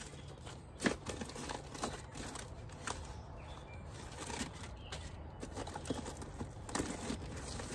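Rummaging by hand through bags and food packages: plastic crinkling and rustling with a few sharp knocks, the loudest about a second in.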